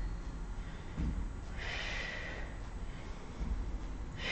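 A woman breathing out hard while exercising: one long breath out about one and a half seconds in and another starting at the end, with faint low thumps in between.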